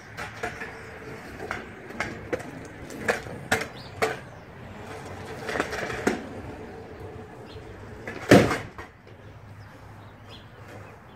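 Kick scooter riding on a tarmac driveway, with a string of sharp clacks and knocks from its wheels and deck. One much louder bang a little past eight seconds in.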